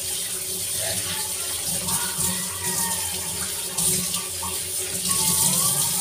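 Kitchen tap running steadily into a stainless steel sink, the stream splashing through a bunch of Malabar spinach (alugbati) leaves as they are rinsed.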